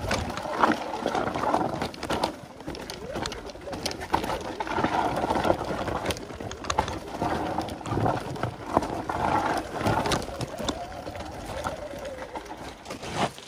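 Segway X260 electric dirt bike riding down a rocky dirt trail: an uneven rush of tyre and ride noise with frequent sharp knocks and clatter as it goes over stones and ruts.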